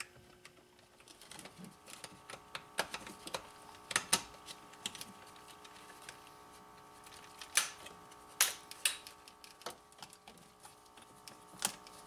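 Irregular sharp plastic clicks and knocks as electrical connectors are pushed together and the plastic shifter trim panel is handled into place in the centre console, the loudest about four and eight seconds in.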